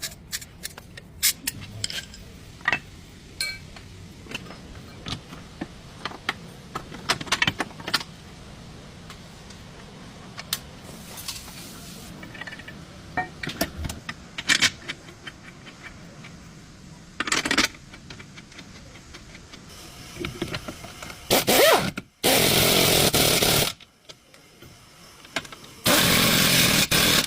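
Metal tools clinking and knocking on a car's front suspension while the lower control arm is being worked on: scattered sharp clicks and taps. Near the end come two loud bursts of a steady noise, each about a second and a half long.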